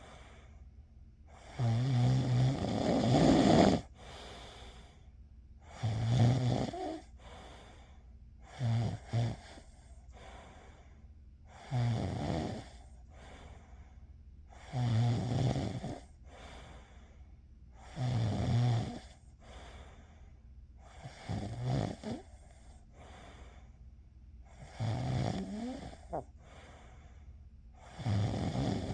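A person snoring, about nine snores roughly three seconds apart, each a rattling buzz on the breath. The first, a couple of seconds in, is the longest and loudest.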